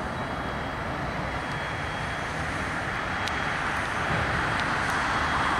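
Freight train on a slow reverse (shoving) move, its rolling cars giving a steady rumble and hiss that grows gradually louder as they come closer.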